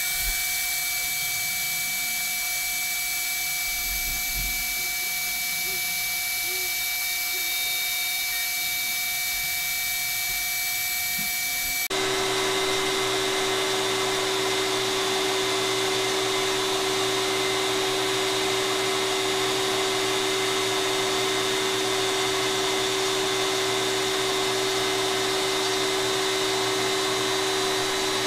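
Router spindle on a LowRider CNC machine running with a steady whine. Its tone changes abruptly about twelve seconds in, then holds steady again.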